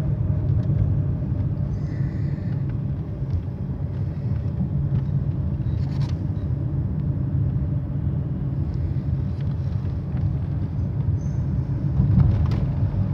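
Car running on the road, heard from inside the cabin: a steady low rumble of engine and tyres.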